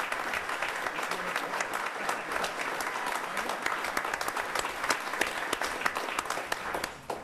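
A small group of people applauding, a dense steady patter of hand claps that dies away suddenly near the end.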